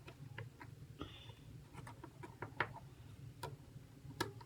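Light, irregular clicks and ticks of a small precision screwdriver and metal parts as tiny screws are taken out of the iPhone 8 Plus's internals, with a few sharper clicks near the end.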